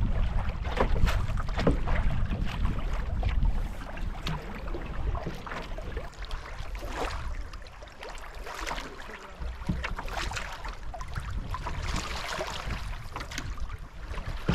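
Choppy lake water splashing and slapping against a canoe's hull as it moves along, in many short irregular splashes. Wind buffets the microphone, heaviest in the first few seconds and then easing.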